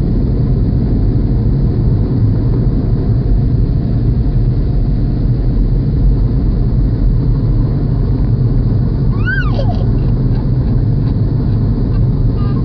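Car wash air dryer blowers running with a loud, steady rush, heard from inside the car. About nine seconds in, a toddler lets out a short rising-and-falling wail.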